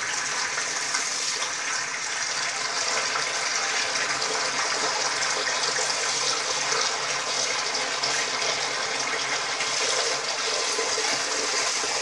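Water running steadily, a continuous even rush with no break.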